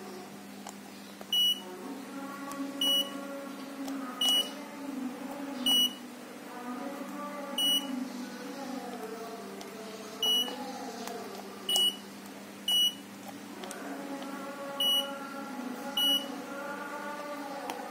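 Control-panel buzzer on a line-tracing AGV robot giving a short, high beep with each button press as the settings menu is stepped through. There are ten beeps at irregular gaps of one to two and a half seconds.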